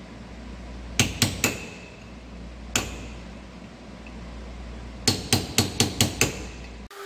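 Hammer striking a chisel set against an old pinion seal in a Dana 30 axle housing, metal on metal with a short ring: three blows about a second in, a single blow a little later, then a quick run of six blows near the end. The blows dent the seal to free it from its bore so it can be popped out.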